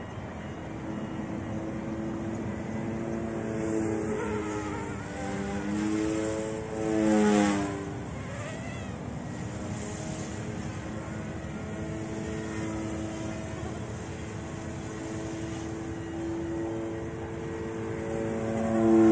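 Eachine E180 RC helicopter's dual brushless direct-drive motors and rotors whining overhead during loops. The pitch dips and rises with each manoeuvre, and it is loudest about seven seconds in and again near the end.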